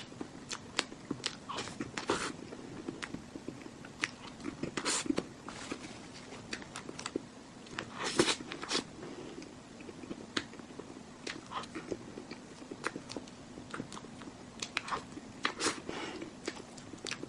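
Close-up eating sounds of a cream cake being bitten and chewed: irregular wet smacks and clicks of the mouth, some sharper than others.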